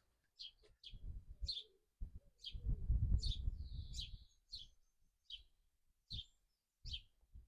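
Small bird chirping, about a dozen short high chirps at an uneven pace. A low rumbling noise rises about two seconds in and fades out some two seconds later, louder than the chirps.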